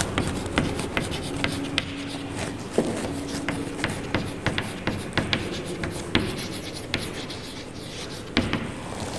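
Chalk writing on a chalkboard: irregular taps and short scratches as letters are stroked out, with no speech.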